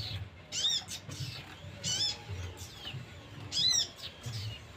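Pet sogon bird giving short, squeaky, arched chirps, several in a row with the loudest three spaced about a second and a half apart, over a faint low hum.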